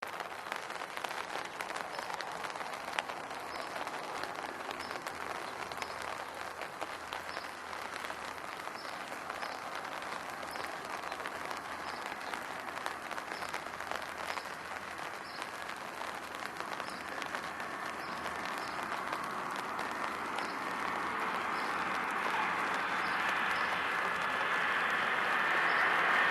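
Steady hiss and crackle of rain and wind. About two-thirds of the way in, the engine noise of an approaching Airbus A320 on landing approach rises and keeps growing louder to the end.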